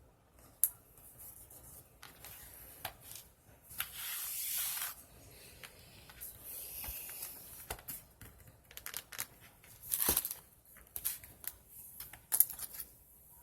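Paper being handled for collage: rustling and rasping, with a longer rasping stretch about four seconds in and another around six to seven seconds, amid scattered sharp clicks and taps.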